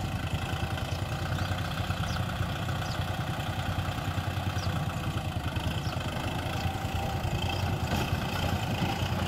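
Kubota M6040SU tractor's diesel engine running steadily at low revs as the tractor creeps along towing a trailer.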